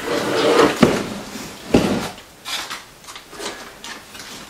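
Plastic toiletry bottles, tubes and boxes clattering and rustling as they are handled in a plastic basket. There are two sharp knocks in the first two seconds, then lighter scattered clicks.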